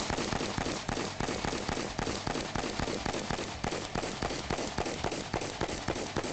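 Rapid gunfire from a DPMS Mark 12 AR-15 rifle: a fast, unbroken string of shots, several a second.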